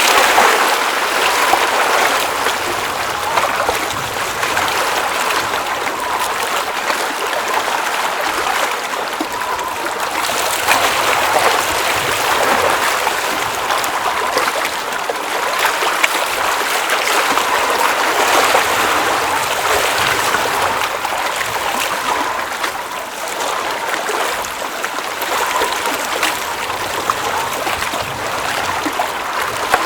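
Water at a glacial mountain lake running and trickling steadily, a continuous babbling rush dotted with small splashes.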